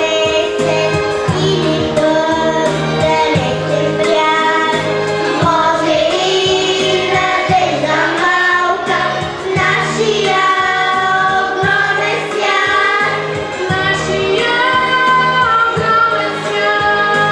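Children's choir of girls singing into microphones over an instrumental accompaniment with a steady beat.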